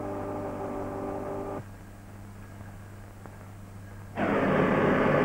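Workshop machine running with a steady whine, which cuts off about a second and a half in, leaving a low hum from the old film soundtrack. Near the end a louder, steady rushing noise sets in.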